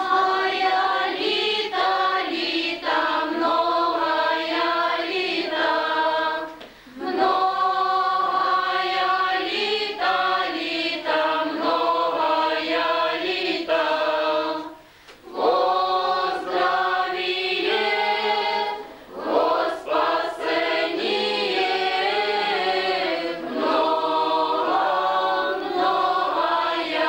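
Women and girls singing a Ukrainian song together without accompaniment, in long held phrases with brief breaks between them, about a quarter and halfway through.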